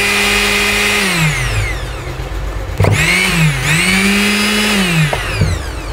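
Prestige mixer grinder's bare brushed motor running on direct mains at full speed with a high whine, twice: it winds down about a second in, is switched on again about three seconds in, and winds down again near the end. Its reaching full speed shows the repaired wiring has brought the motor back without a new field coil.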